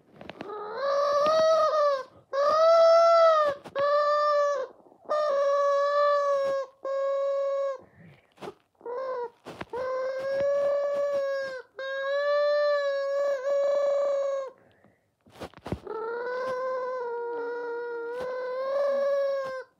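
Squeaky rubber chicken toy being squeezed again and again: long, drawn-out squawks of a second or two each, held at a nearly steady pitch, with short gaps between.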